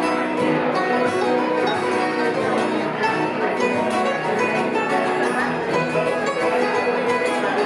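Live acoustic bluegrass band playing: banjo picking over strummed acoustic guitars, steady and continuous.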